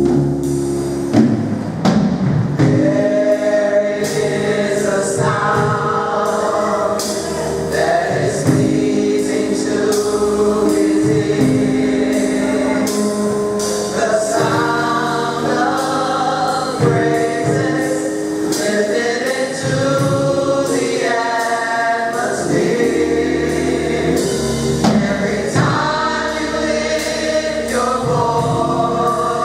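Mass choir singing a gospel song, many voices holding chords together, with percussion keeping a steady beat underneath.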